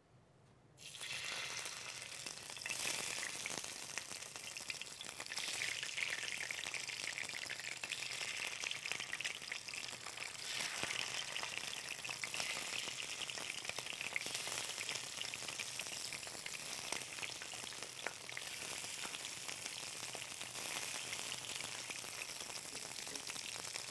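Pieces of fish fillet sizzling in hot oil in a frying pan as they are laid in one by one. The sizzle starts suddenly about a second in and then carries on steadily with a fine crackle.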